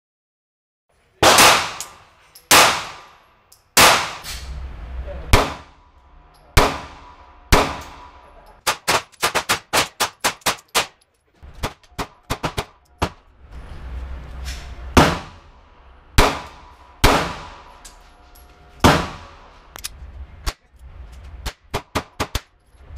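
Smith & Wesson M&P Shield 9mm pistol firing single shots one to two seconds apart, each shot ringing on in the indoor range, with faster strings of quieter shots in between.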